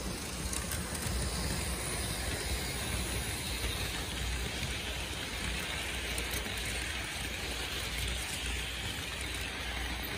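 Märklin HO model passenger train running along the layout track: a steady rattle of wheels on the rails with a low hum from the locomotive's motor.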